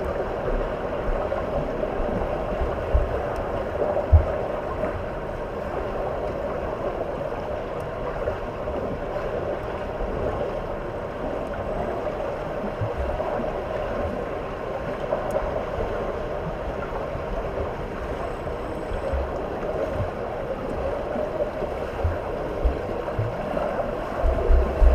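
Steady rushing, sloshing water noise with occasional low thumps, several of them close together near the end.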